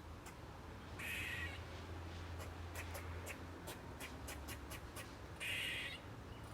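Squirrel screeching: two harsh half-second screeches, one about a second in and one near the end, with a quick series of short sharp clicks in between.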